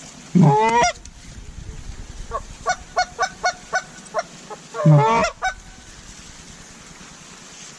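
Goose call blown to bring in birds: two loud honks about four seconds apart, each a low note that breaks sharply upward, with a quick run of short clucks between them.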